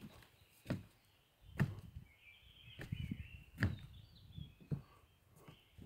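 Footsteps on wooden stairs and boardwalk, one heavy step about every second, with birds chirping in the background.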